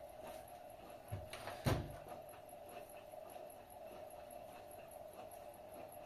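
AEG Öko-Lavamat front-loading washing machine running: a steady hum with faint, regular ticking. A softer thump comes about a second in, followed shortly by one sharp loud knock.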